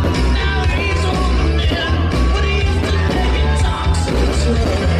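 Loud rock music with a singing voice over a steady bass beat, the soundtrack of a music-synchronised fireworks show.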